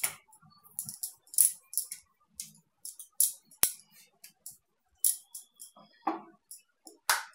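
Light clicks and taps, scattered irregularly, as a puri is rolled out with a rolling pin on a board.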